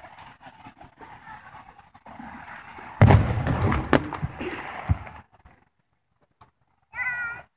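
Aerial fireworks shell bursting: a sudden loud boom about three seconds in that rumbles and echoes away over about two seconds, with a few sharper bangs inside it.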